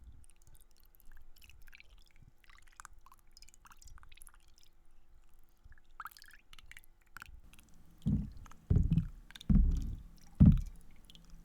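Faint scattered clicking and crackling foley sounds. About eight seconds in, a run of heavy, low, rhythmic strokes begins, about one a second, each dying away quickly.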